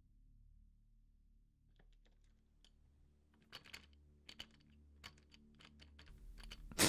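A run of irregular light clicks and taps over a faint low drone, growing louder partway through, then one sharp loud bang just before the end.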